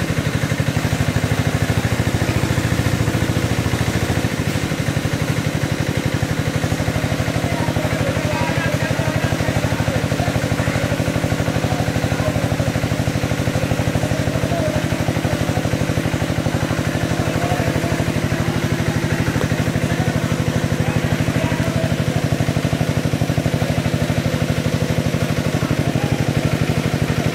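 Engine-driven water pump running steadily, draining the pond; its engine gives an even, unbroken drone.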